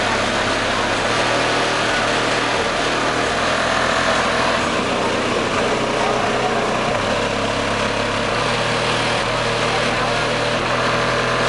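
Custom car audio system pounding out loud bass, with the low bass note changing every few seconds.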